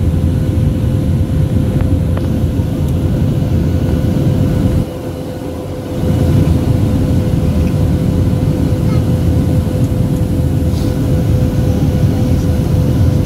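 Boeing 737-800 cabin noise in flight: a steady low rumble of engines and airflow with a constant hum through it. It dips briefly about five seconds in, then returns to its level.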